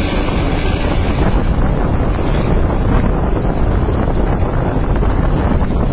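Heavy wind buffeting the microphone over a steady low rumble of a bus under way, its engine and exhaust droning.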